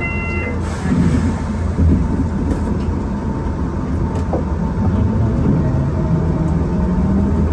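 Enoden electric train running along the line, a steady low rumble with a thin continuous hum, and a short high tone right at the start.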